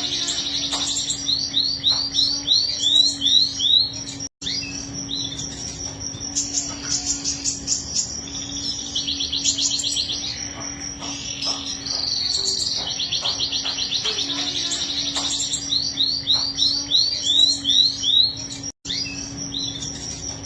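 Domestic canary singing long rolling songs (ngerol): fast trills and runs of rapid repeated rising notes in recurring phrases, over a faint steady low hum.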